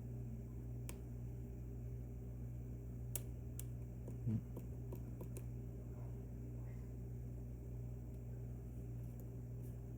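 A few faint, scattered clicks of a lock pick working the pin stack of an Assa Twin V10 lock, probing a binding pin during picking, over a steady low hum.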